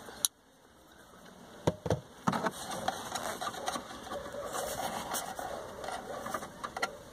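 Pliers and fingers working loose the nuts that hold a car's tail-light housing: a sharp click just after the start, a couple of knocks about two seconds in, then steady scraping and rustling with light clicks of metal on plastic.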